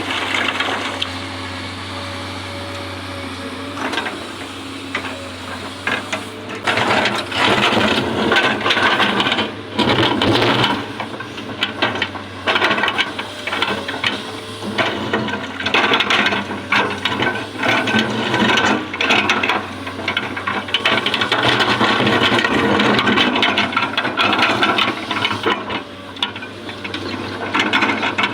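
Excavator running with a steady engine drone, then from about six seconds in a dense, irregular rattling and scraping as it works, rising and falling in waves.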